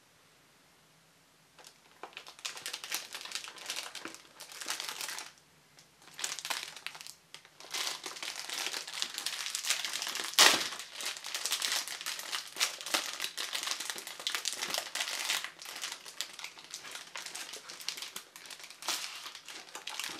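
Clear plastic packaging crinkling as it is handled and pulled apart, in irregular bouts with short pauses, starting about a second and a half in. One sharper crackle stands out about halfway through.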